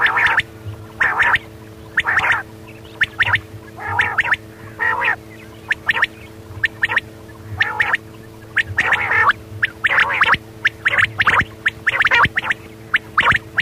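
Quail calling over and over: short calls about once a second, some coming in quick pairs, over a faint steady hum.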